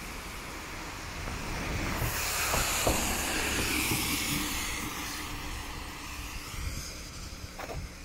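A minibus passing on a wet road: its tyre hiss swells over a couple of seconds, peaks near the middle and fades away.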